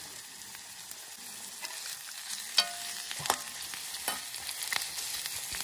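Hot oil sizzling in a cooking pan while a spoon stirs, knocking against the pan several times; the loudest knock, about two and a half seconds in, rings briefly.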